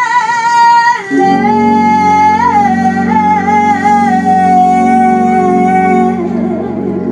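A woman singing into a microphone: one long high note, then about a second in a second long note a little lower that slowly falls and ends near the end, with an instrumental accompaniment coming in beneath it.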